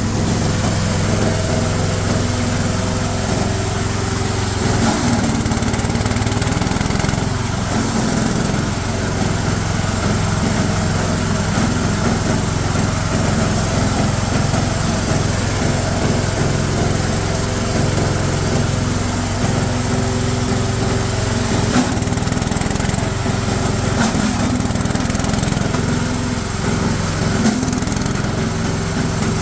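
G-30 frond chopper-grinder running steadily under load, grinding coconut fronds mixed with small twigs, with a constant mechanical hum and a few sharp knocks.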